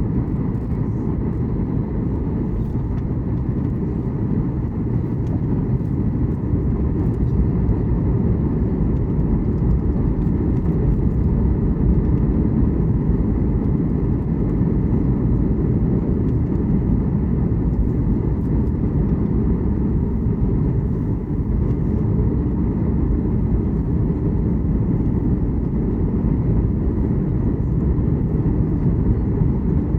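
Steady rumble of engine and airflow noise heard inside the cabin of a Boeing 737 MAX 8 in flight, its CFM LEAP-1B engines running.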